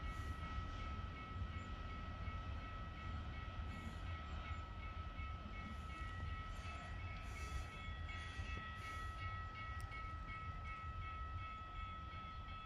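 Distant diesel-electric freight locomotive approaching along the line: a steady low rumble, with a thin high-pitched whine held throughout.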